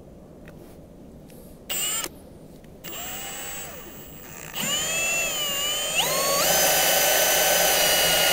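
Drill boring a pilot hole into a wooden gate post with a long 5/16-inch bit for a half-inch lag bolt: two short trigger pulls, then the motor spins up, its pitch rising, and runs steadily at full speed for the last two seconds.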